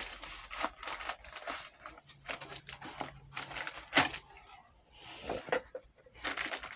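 Thin plastic packaging bag crinkling and rustling as it is handled and pulled open, with one sharp knock about four seconds in.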